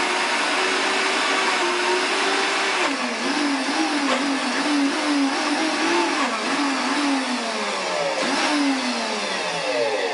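Countertop bar blender running, crushing ice with kiwi and pineapple juice for a blended cocktail. Its motor hum holds steady for about three seconds, then wavers up and down and slowly sinks in pitch as the blades work through the ice.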